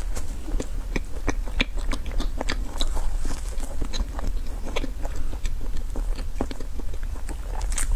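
Close-miked biting and chewing of a dessert, ASMR-style, with many irregular crunching clicks.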